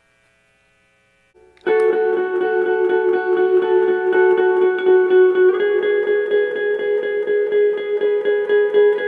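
Electric guitar played through effects and a loop pedal: after a faint hum, sustained, layered notes come in suddenly about a second and a half in and ring on, shifting to a new chord a little past halfway.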